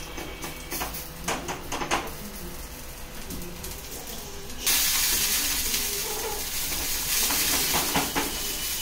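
Wheat adai dough on a hot iron dosa griddle. Scattered light taps and clinks of hands and a steel spoon, then about halfway through, oil spooned onto the griddle sets off a sudden loud sizzle that carries on steadily.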